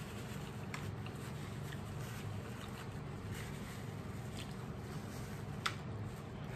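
Quiet room tone: a steady low hum with scattered faint clicks and rustles, and one sharper click about five and a half seconds in.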